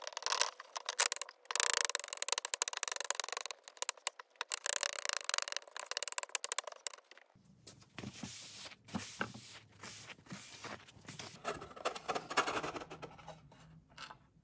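A cloth rubbed over a flat wood panel in dense scrubbing strokes, working stain into the wood; about seven seconds in, the sound changes to a softer wiping with a paper shop towel.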